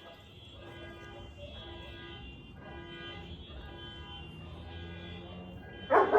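Several car alarms sounding together in repeating, pulsing electronic tones, set off by a large salute firework blast. Near the end a dog starts barking loudly.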